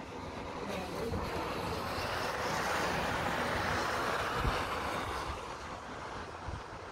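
Snowstorm wind gusting outside a window, an even rushing noise that swells over a couple of seconds and then eases off.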